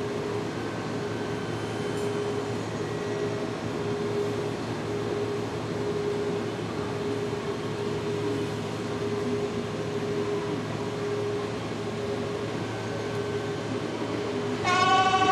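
A Kintetsu 26000-series Sakura Liner standing at the platform gives a steady hum from its air conditioning and electrical equipment, with a faint steady tone in it. Near the end a station departure bell suddenly starts ringing loudly.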